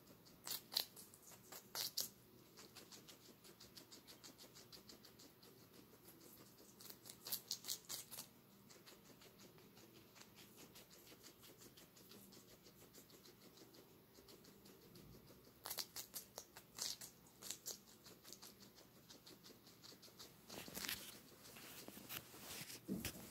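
Guinea pig chewing green bell pepper: rapid, crisp crunching clicks in several bouts of a second or two, with fainter steady chewing between them.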